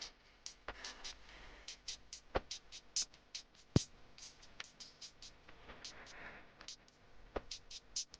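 Background music: a sparse, uneven beat of sharp clicks and taps with a few heavier knocks.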